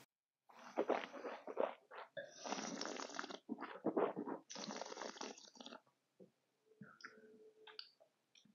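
A wine taster aerating a mouthful of red wine, drawing air through it in several noisy slurping pulls. The two longest pulls come about two and four and a half seconds in, followed by quieter mouth clicks and smacks.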